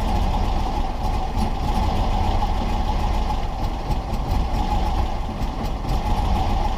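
Air-cooled engine of a 1970 Volkswagen Type 2 bus idling, a steady low rumble.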